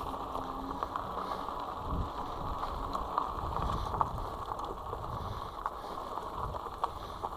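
Himiway Zebra fat-tyre e-bike riding over a rough off-road trail: a steady rumble of tyres and frame rattle, with scattered knocks and a few bumps.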